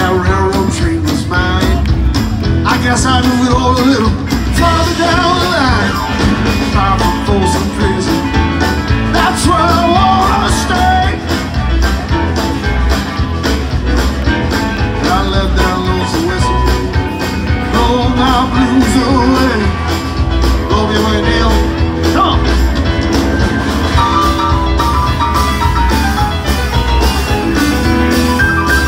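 Live rock band playing loudly, with electric guitars and bass guitar over a steady low end and a lead melody that bends up and down. Near the end, a quick repeated high note pattern comes in.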